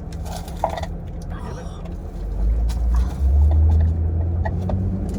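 Car engine and road rumble heard from inside the cabin, a steady low drone that grows louder for a second or two past the midpoint.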